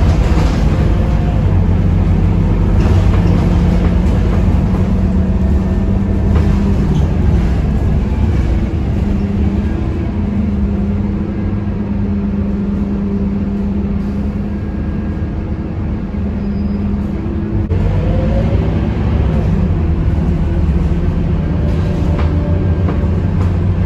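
Scania K230UB city bus heard from inside the cabin: the rear-mounted diesel engine and drivetrain give a steady low hum under the sound of the bus on the move. The note eases off for several seconds in the middle, then picks up again with a short rising whine about eighteen seconds in.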